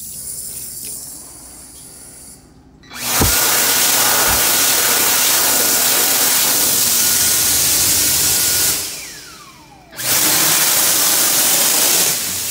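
A sensor faucet runs water for about two seconds. Then a Dyson Airblade V hand dryer starts with a loud rush of air, runs for about six seconds, and spins down with a falling whine. It starts again about ten seconds in and cuts back near the end.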